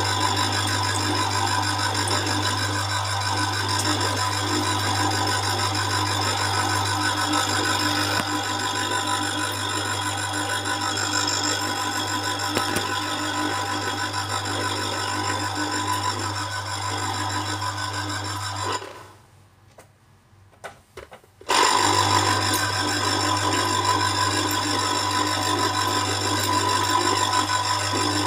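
Electric citrus juicer's motor humming steadily while an orange half is pressed onto its spinning reamer cone. About two-thirds of the way through it stops for nearly three seconds, then starts up again.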